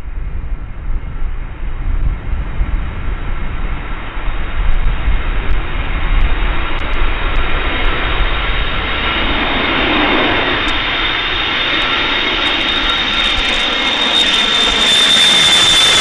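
Boeing E-3A AWACS on landing approach, its four Pratt & Whitney TF33 turbofans growing steadily louder as it closes in, a high steady whine over the jet rumble. Strong wind buffets the microphone in the first few seconds.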